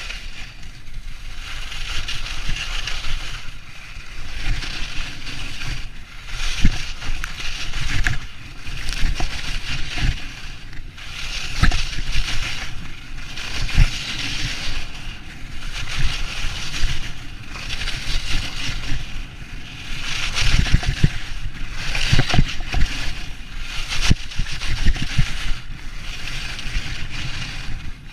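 Skis hissing and scraping over packed snow through a run of turns, the hiss swelling and fading every two seconds or so, over low rumbles and scattered thumps.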